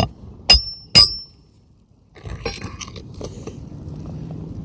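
Three hammer strikes about half a second apart on a roof snake, driving a roofing nail through the shingle into the roof decking. The last two strikes give a short metallic ring, followed by softer handling clicks.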